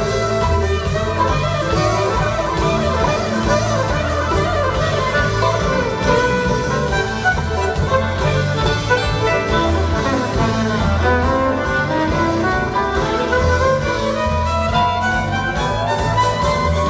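Live string band music with fiddle, drums and upright bass playing an instrumental jam over a steady beat. In the last third one instrument slides steadily upward in pitch.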